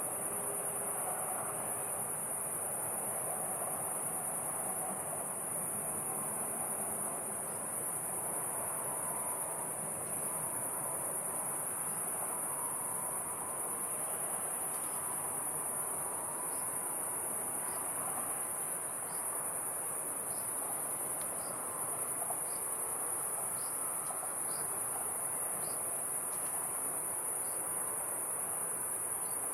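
Steady, unbroken high-pitched chorus of insects at dusk. From about halfway, faint short chirps repeat roughly once a second over it.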